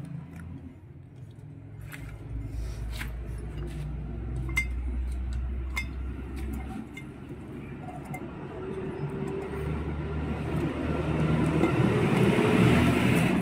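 Light metallic clinks and taps of a scooter engine's piston, rings and cylinder block being handled, over a low vehicle rumble that swells to its loudest near the end.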